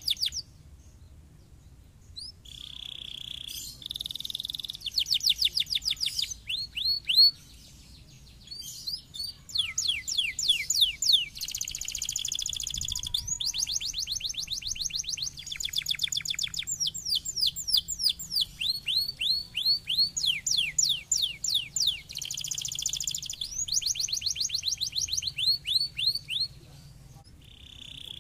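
Domestic canary singing: long fast trills of rapidly repeated sweeping notes, mixed with buzzy rolled notes, in phrases broken by short pauses about a second in and again around seven seconds in.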